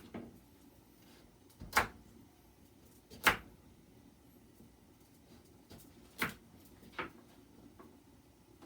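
Occasional sharp kitchen knocks against quiet room tone: four louder ones at irregular spacing, a second or more apart, with a few fainter clicks between them.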